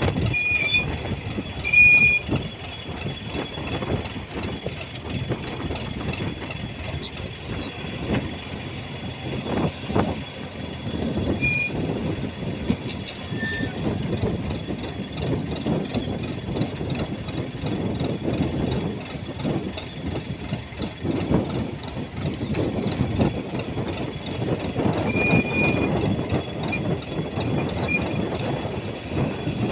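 Fishing boat's engine running steadily with a fast, even chugging.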